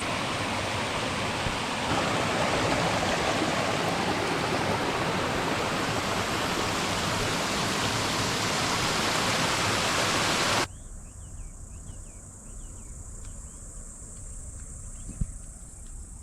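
A loud, steady rushing hiss of noise, like running water. It cuts off suddenly about ten and a half seconds in, leaving a quieter, steady high-pitched insect drone with faint chirps.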